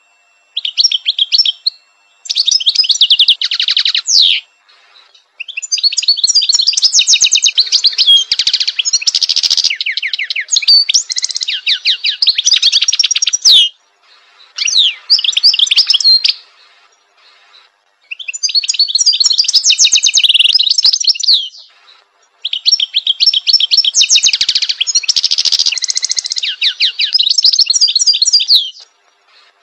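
European goldfinch singing: fast, high, tinkling twitters and trills in phrases a few seconds long, broken by short pauses of about a second.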